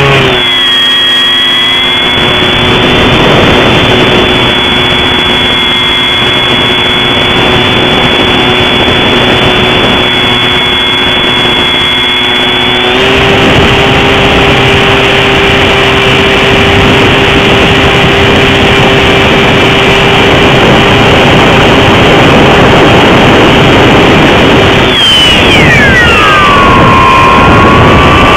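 Bixler II model plane's electric motor and propeller running steadily, heard from a camera mounted on the plane. The whine steps up a little about halfway through, then near the end falls steeply in pitch as the motor slows.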